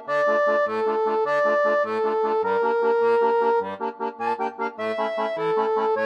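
Background music: an accordion plays a held melody over an even, bouncy bass-and-chord accompaniment.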